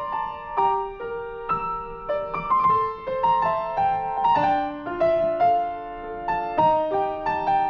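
Solo piano playing a slow, gentle piece, with chords and melody notes struck every half second or so and left to ring.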